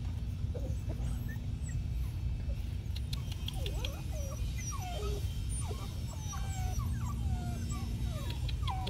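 American Molossus puppies whimpering and yipping: a flurry of short, high, sliding whines that thickens through the second half, over a steady low rumble.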